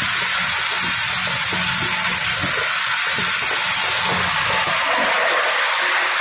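Steady hiss of running popcorn-line machinery, with caramel-coated popcorn tumbling and knocking in a rotating drum. The knocking fades about four seconds in as the hiss grows fuller.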